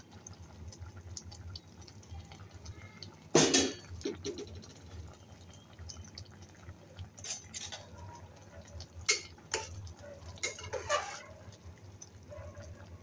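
A metal spatula clinking and knocking against a cooking pot while stirring sticky mango slices in syrup. There is one sharp loud knock about three seconds in and several lighter clinks later, over a low steady hum.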